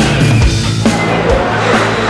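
Loud hard-rock backing music with a heavy drum beat, about two hits a second.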